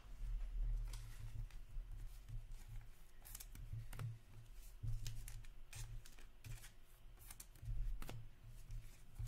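Trading cards being handled and shuffled by hand on a table: scattered light snaps and flicks of card stock over a low hum.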